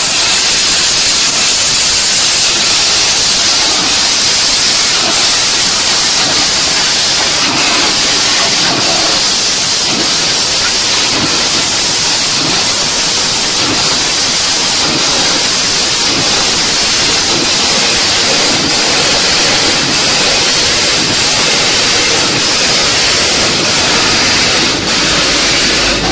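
Industrial onion peeling machine running, a loud, steady hiss of its compressed-air jets blowing the skins off, with occasional light knocks.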